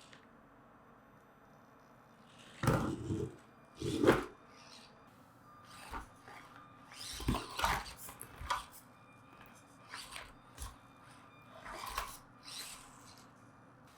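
Axial SCX24 1/24-scale RC crawler running on its stock motor and ESC in short stop-start bursts of whirring, with knocks and scrapes of tyres and chassis on the course. The loudest bursts come a little under 3 s in and about 4 s in, with smaller ones through the rest.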